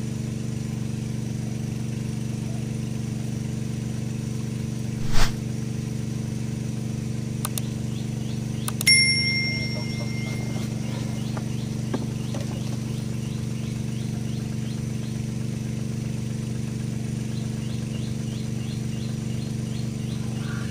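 Steady low drone of a small engine running. A single sharp knock comes about five seconds in, and a bright metallic ring just before the middle fades away over about two seconds. Faint quick ticking follows through the second half.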